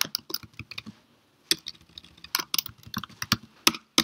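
Typing on a computer keyboard: a run of uneven keystroke clicks, with a short pause about a second in.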